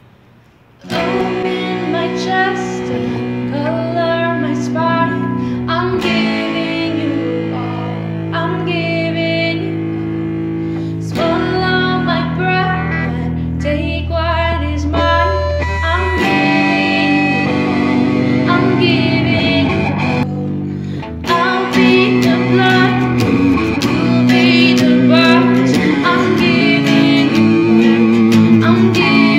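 A woman singing while strumming an acoustic guitar, starting about a second in and growing louder past the middle.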